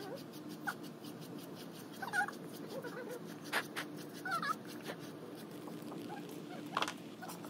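Dalmatian whining in short high-pitched whimpers several times while being bathed, over a steady low hum.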